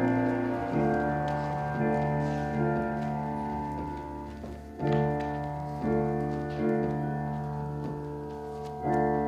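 Slow instrumental music: sustained chords struck roughly once a second, each starting sharply and slowly fading into the next.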